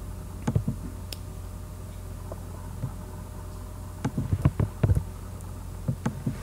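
Scattered computer keyboard and mouse clicks while code is being edited, most of them in a cluster about four to five seconds in, over a steady low hum.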